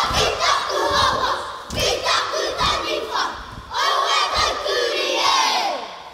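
Children's kapa haka group shouting a haka in unison, with thumps from slaps and stamps; the chant ends in a long falling call near the end.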